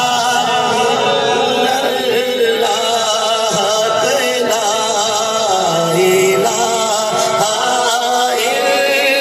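A man's voice chanting a naat, an Urdu devotional recitation, in long, wavering held notes through a microphone.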